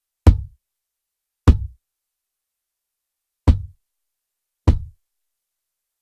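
A recorded kick drum, a blend of inside and outside kick mics, played back on its own through a Lindell Audio 7X-500 1176-style compressor, set to extreme compression. Four short, punchy hits, each a sharp click with a low, quickly decaying tail, come in two pairs about a second apart, with a longer gap between the pairs.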